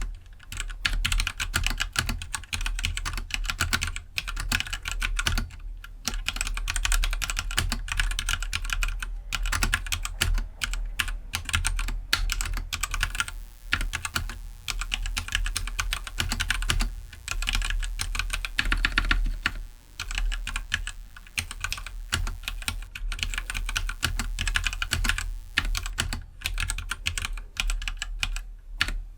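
Steady, fast typing on a stock Keydous NJ68 65% mechanical keyboard fitted with Gateron Black linear switches: a dense run of keystroke clacks with a few short lulls.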